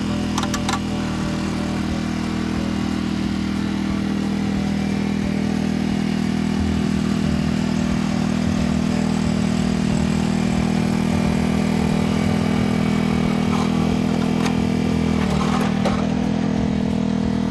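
BCS walk-behind tractor with a rotary tiller, its engine running steadily while tilling garden soil. A few short clicks sound near the start and again about fifteen seconds in.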